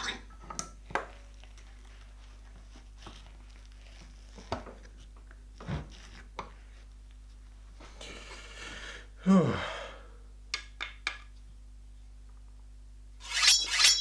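Scattered knocks and clicks of tools and plastic pieces being handled on a workbench, with a short scrape and a falling squeak partway through and a loud ringing metallic clink near the end.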